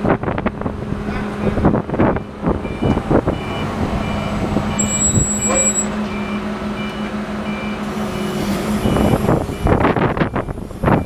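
A heavy machine's engine running steadily while a backup alarm beeps about twice a second for several seconds in the middle. Wind gusts on the microphone at the start and near the end.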